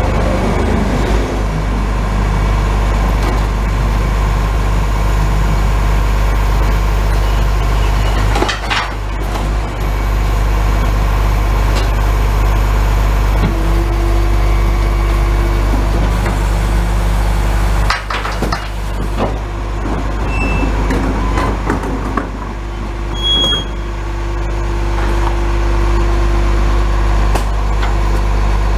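Rear-loader garbage truck with its engine running steadily and its hydraulics working the rear bin lifter and compactor, as wheelie bins are lifted and tipped into the hopper. A few loud bangs come from the bins and the lifter, and twice a steady hydraulic whine holds for a few seconds.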